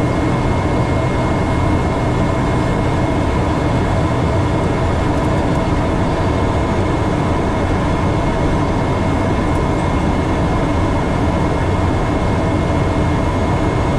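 Steady airliner cockpit noise on approach: an even rush of airflow and engine hum heard from the flight deck, with a thin steady high whine above it.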